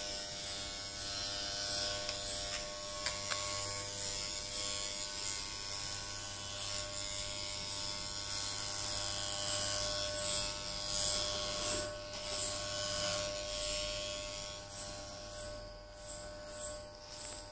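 Daiyamondo FYC RF-666 electric hair trimmer running with a steady buzz as it cuts leg hair, with a regular pulsing rise and fall about two to three times a second. It gets somewhat quieter in the last few seconds.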